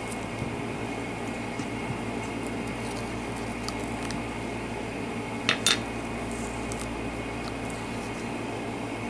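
Steady background hum with a faint high whine, broken once about five and a half seconds in by two quick clicks or knocks.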